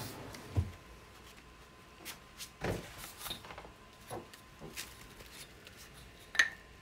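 Scattered light knocks and taps of a wooden cocobolo turning blank and a straight edge being handled on a hard surface, the straight edge set against the blank to check it for bow.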